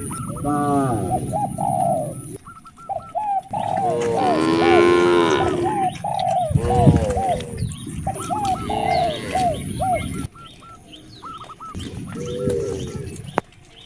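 Cattle mooing several times, deep drawn-out calls. Between the moos a bird calls in quick strings of short, arching notes, and there is one sharp click near the end.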